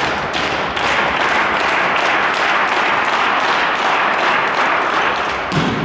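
Arena crowd applauding: many overlapping claps blending into a steady wash.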